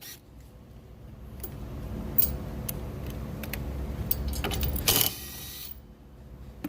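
Scattered metal clicks and clinks of hand tools working on the wiper-arm nuts, with a low handling rumble. There is a single click about two seconds in, and a cluster of clicks with a louder scrape near five seconds.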